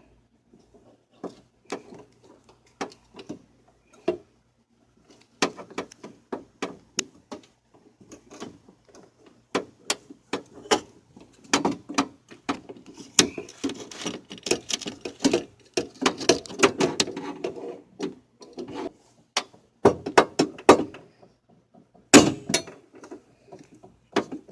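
Hands working a power window regulator into a car door: a long run of irregular metal and plastic clicks, knocks and rattles, busiest in the middle with a stretch of continuous rattling, and one loud knock near the end.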